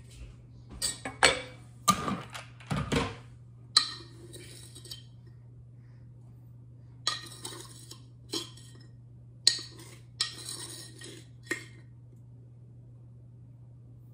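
Kitchen utensils and dishes clinking and scraping in short scattered bouts, with several sharp knocks in the first few seconds, as muffin ingredients are measured and handled. A faint steady low hum runs underneath.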